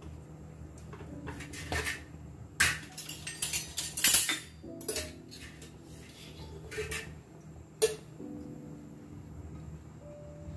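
Metal spoon and kitchen pots clinking and knocking against each other as ghee is spooned into an empty pressure cooker, in a string of sharp, irregular clinks.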